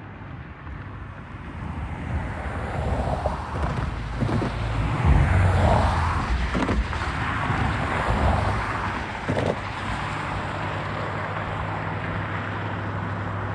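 Union Pacific intermodal freight train passing close by: wheels rumbling on the rails with a few clanks, swelling to its loudest about five seconds in. From about ten seconds in, a steady low hum settles in.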